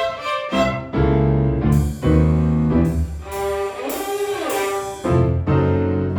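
A violin ensemble playing a lively piece with piano accompaniment, in short rhythmic chords, with a sliding pitch about four seconds in.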